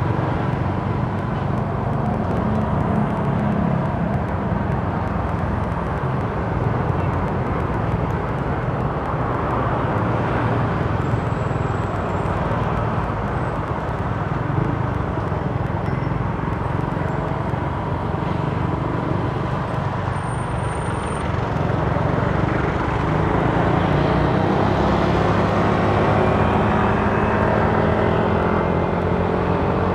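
Motorcycle engine running while riding, with road and wind noise. About two-thirds of the way through, the engine rises in pitch and gets louder as the bike speeds up.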